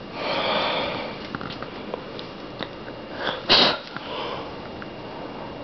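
A person sniffing and breathing through the nose close to the microphone, with the loudest, sharpest sniff about three and a half seconds in. A few light handling clicks come in between.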